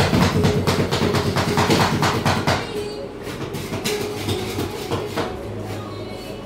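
Two metal spatulas chopping ice cream on a steel cold plate for rolled ice cream: a rapid clacking of about five strokes a second. About two and a half seconds in it thins to occasional taps and scrapes as the mixture is spread flat.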